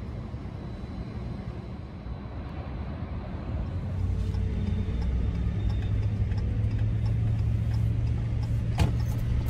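Vehicle's engine and road noise heard from inside the cabin: a steady low rumble that grows louder about four seconds in as the vehicle gets going. There is a single sharp click near the end.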